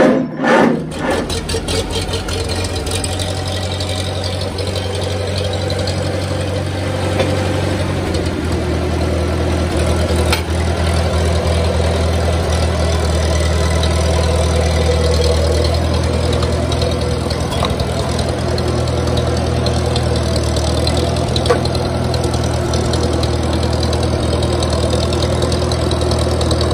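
A Farmall tractor's four-cylinder gas engine catches right at the start and then runs steadily. Its note picks up a little about eight seconds in as the tractor is driven off.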